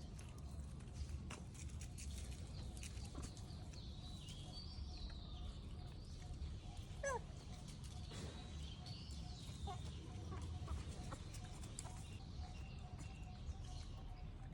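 Faint animal calls and chirps over a steady low rumble, with one short squeaky call about seven seconds in and scattered light clicks.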